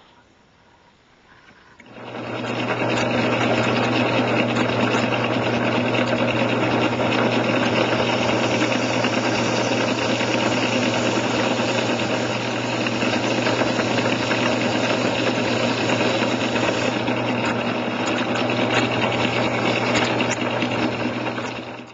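Electric grinder motor on a Do-All DBW-1A blade welder starting up about two seconds in and running steadily with a strong mains hum, then cutting off at the end.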